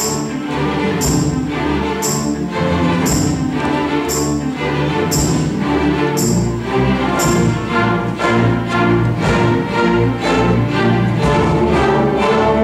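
Symphony orchestra playing, strings to the fore, with a crisp high beat about once a second that stops about seven seconds in.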